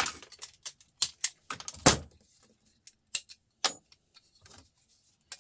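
Small metal laptop parts and tools clinking and clattering as they are handled, in irregular sharp clicks and knocks, the loudest about two seconds in.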